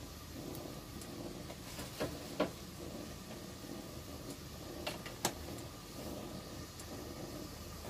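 Pan of water heating on the stove with dry instant noodle blocks in it: a faint, steady low hum, with a few short ticks twice about two seconds in and twice about five seconds in.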